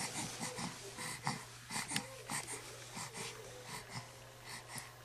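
A young baby's quiet, irregular breathing, with small grunts and snuffly breaths.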